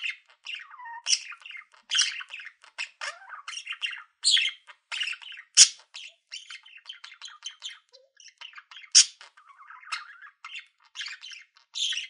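Budgerigar singing: a fast, continuous warble of chirps, clicks and chatter, broken by a few louder, sharp squawks, the loudest about halfway through.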